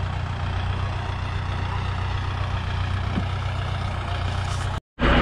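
Kubota farm tractors' diesel engines running steadily, a low hum. Near the end the sound breaks off for a moment and comes back louder and closer.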